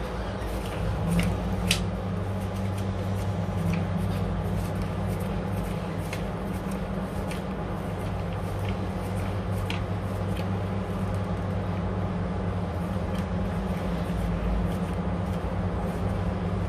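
Banknotes counted by hand, giving short papery flicks and rustles now and then over a steady low electrical hum.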